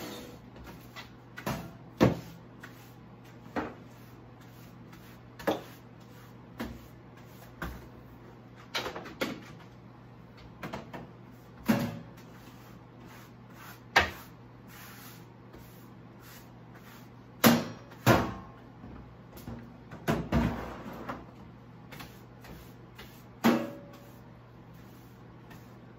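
A broom sweeping a hard kitchen floor, with a dozen or more scattered knocks and bumps every second or two as it strikes the floor and nearby cabinets. The loudest knocks come in a cluster about two-thirds of the way through.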